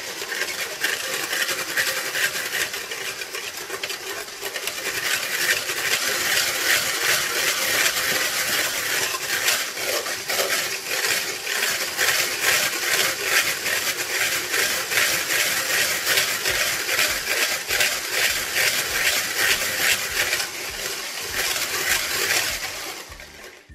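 Electric hand mixer with wire beaters whipping whipped-topping powder and milk in a plastic bowl, a steady rattling whir of beaters against the bowl. It gets louder about four seconds in and stops just before the end.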